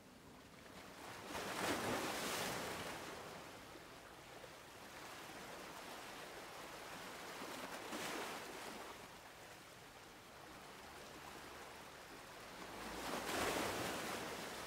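Gentle surf: small waves breaking and washing up a sandy shore, three swells of rushing noise about six seconds apart, the first and last the loudest.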